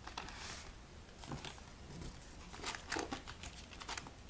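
Paper rustling and crinkling as a hand presses glued wallpaper flat inside a paper box, in several short, soft bursts.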